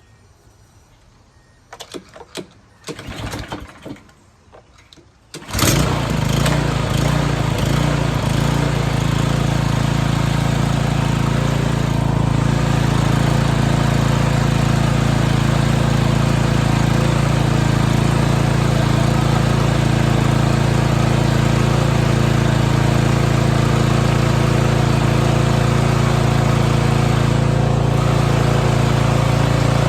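Toro TimeMaster walk-behind lawn mower engine pull-started: a couple of rattly cord pulls, then the engine catches about five seconds in and runs steadily. With the recoil starter pawls shaved down, the recoil rattle is gone.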